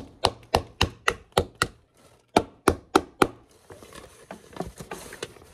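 Screwdriver handle striking the thin aluminium reflector dome of a clip-on brooder lamp to dent and flatten its top: about a dozen sharp knocks, roughly three a second, with a short pause near the middle. After about three and a half seconds the strikes stop and only faint small clicks remain.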